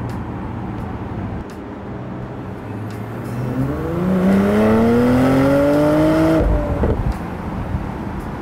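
2022 Porsche Macan driving past with a steady engine and road drone, then accelerating hard: the engine note rises steadily in pitch for about three seconds and is the loudest part, then cuts off suddenly about six seconds in.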